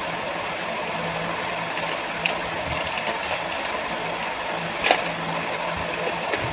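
A steady mechanical whir with a low hum, and two sharp clicks of jewellery being handled, a little after two seconds and about five seconds in, the second louder.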